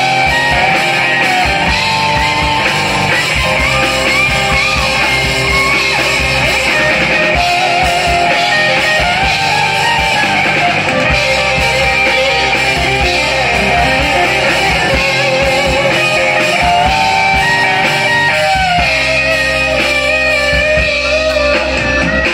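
Live rock band playing an instrumental passage, led by two electric guitars over drums, with no vocals.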